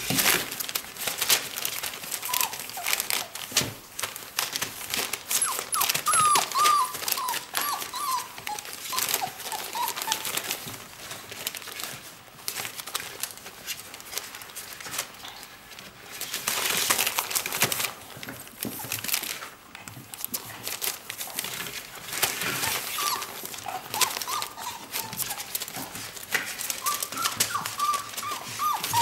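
Four-week-old whippet puppies whining in clusters of short, high cries, hungry while their mother eats just out of reach. Between the cries, newspaper rustles and crinkles under their paws as they scramble against the plywood wall.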